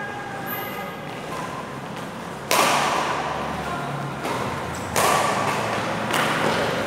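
Badminton rackets striking the shuttlecock in a doubles rally: about four sharp hits, the first some two and a half seconds in, then every second or so, each ringing on in the echo of the large hall.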